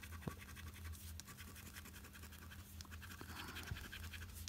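A coin scratching the coating off a paper scratchcard in rapid, faint strokes, with a few sharper ticks, over a low steady hum.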